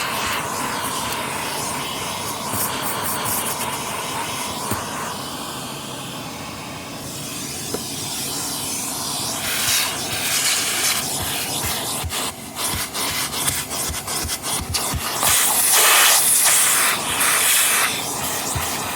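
A vacuum cleaner is running, its nozzle sucking gritty debris off car carpet. A steady hiss is joined from about halfway by crackling and clicking as grit rattles up the hose, and it is loudest a few seconds before the end.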